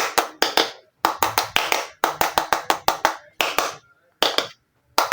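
Quick runs of sharp plastic clicks and taps, several a second with short pauses between the runs: small miniature plastic toy kitchen pieces being handled and knocked together.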